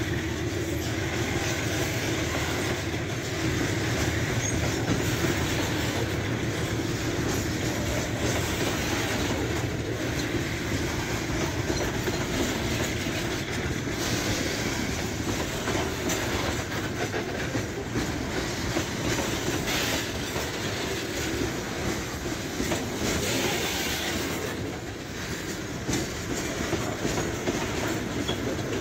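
Freight train of HFD hopper wagons rolling steadily past at close range. The steel wheels rumble on the rails, with a running clatter of knocks as they pass over rail joints.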